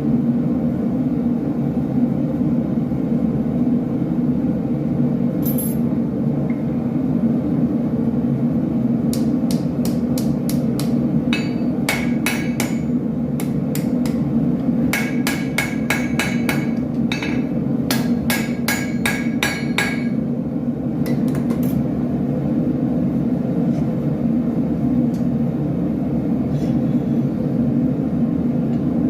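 Blacksmith's hammer striking steel on an anvil, forging a drawknife, in quick runs of ringing blows through the middle of the stretch. A steady low hum sounds underneath throughout.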